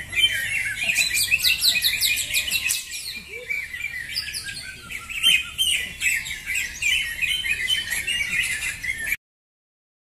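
Several caged greater green leafbirds (cucak hijau) singing at once in fast, overlapping runs of high chirps and trills, continuous singing of the kind judged in a contest. The song stops abruptly near the end.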